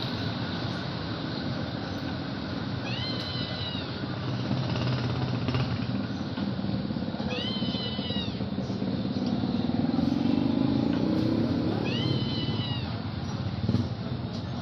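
Three short arching animal cries, about four and a half seconds apart, over a steady low background rumble that swells for a while near the end.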